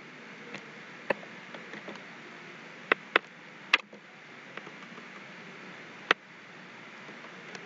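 A handful of separate keystrokes on a computer keyboard, irregularly spaced, over a steady faint hiss.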